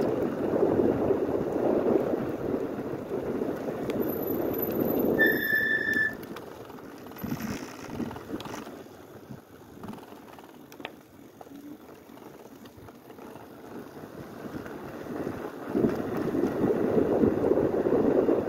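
Wind buffeting the microphone of a moving e-bike, a steady low rumble. About five seconds in there is a brief high brake squeal as the bike slows. The wind noise then falls away while riding slowly, and returns near the end as speed picks up.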